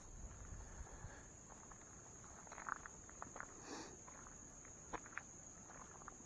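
Faint footsteps of a person walking outdoors, with a few scattered light clicks, under a steady high-pitched drone.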